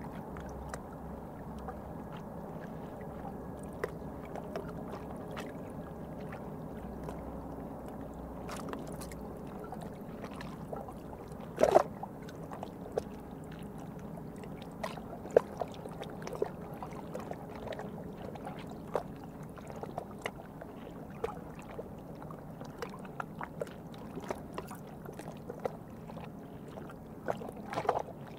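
Industrial canal harbour ambience: a steady low hum of distant traffic and machinery, with many small irregular clicks and knocks scattered through it, the loudest a short cluster about twelve seconds in and another near the end.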